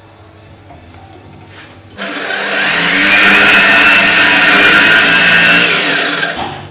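Total electric hand drill starts about two seconds in, runs at speed with a steady high whine for about four seconds, then winds down.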